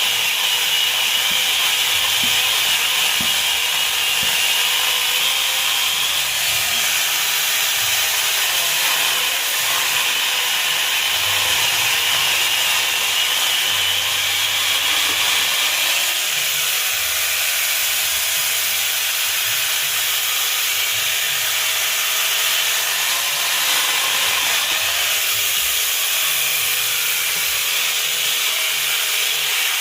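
Small electric mini chainsaw cutting wood: a steady high motor whine over the rasp of the chain, its pitch sagging briefly several times as the cut loads the motor.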